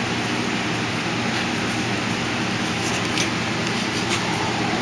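Steady machine hum with an even hiss, like a room fan or air conditioner running. There are a couple of faint short ticks in the last two seconds.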